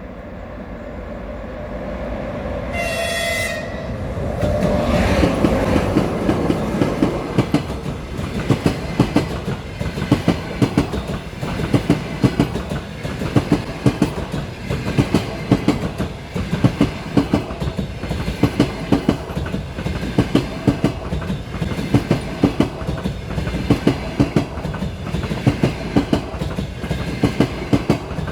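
A train sounds a short horn blast about three seconds in, then passes close by, its wheels clattering in a steady, regular rhythm over the rail joints until the end.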